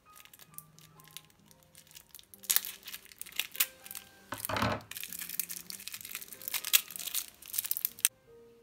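Clear plastic wrapper on a roll of washi tape being cut with scissors and peeled off, crinkling in quick irregular crackles from about two and a half seconds in until shortly before the end. Quiet background music runs underneath.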